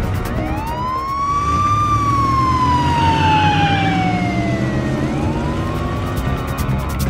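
A siren wailing: it rises over about two seconds, falls slowly for about three, then starts rising again near the end, over background music.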